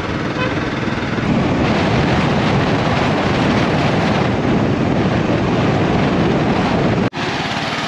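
Vehicle on the move, its engine running under steady road and wind noise. The sound cuts out abruptly about seven seconds in, and a quieter, steadier engine hum follows.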